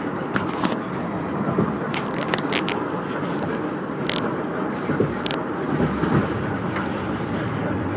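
Steady road and engine noise inside a moving car's cabin, with scattered sharp clicks and crackles.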